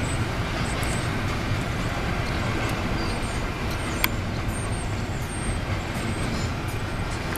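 Steady rumble and clatter of a Union Pacific double-stack container train's cars rolling past on the rails. A single sharp click about four seconds in.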